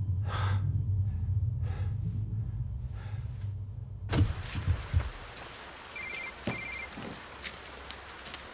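A low steady hum, then a sudden change to steady rain, with a few heavy thuds at the open back of a van and two short phone beeps.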